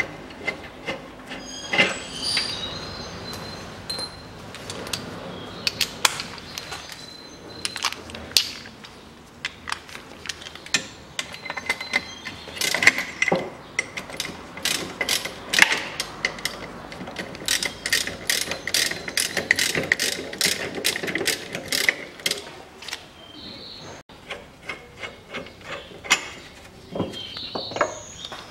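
Socket ratchet wrench clicking in quick runs while undoing a bolt on a car's lower engine mount, with a few sharp metal knocks of the tool.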